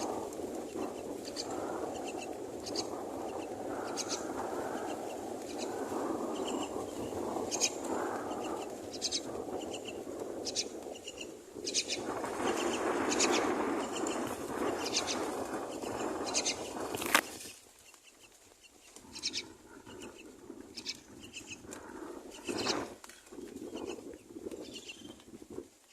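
Myna nestlings calling over and over, short high calls about once a second, with a steady rushing background that stops abruptly after a sharp click partway through.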